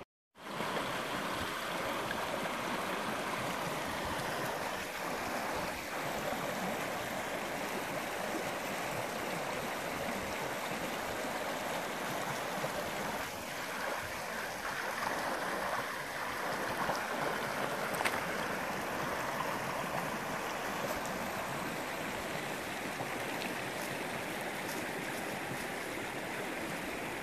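Shallow rocky creek running over stones in a steady rush of water.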